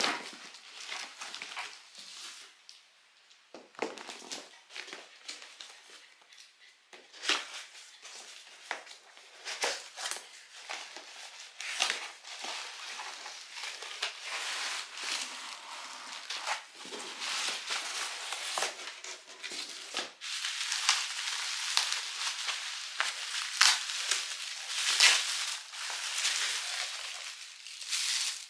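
Cardboard packaging handled and opened: flaps scraping and an inner box sliding out. Then bubble wrap and a plastic bag rustle and crinkle as the pot is unwrapped, a denser, louder crackling in the second half.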